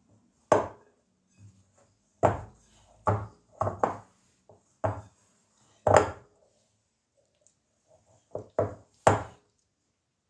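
A glass mixing bowl knocking and bumping on a stone countertop while flour dough is worked by hand inside it: about ten irregular knocks, the loudest about six and nine seconds in.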